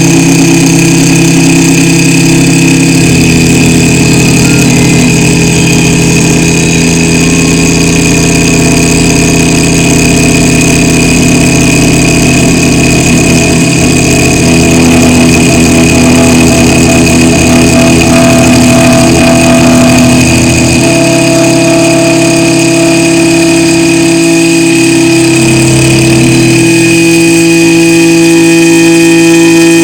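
Small CNC mill cutting a printed circuit board: the spindle motor whines steadily while the stepper-driven axes hum in tones that shift each time a move changes, about 3, 21 and 27 seconds in.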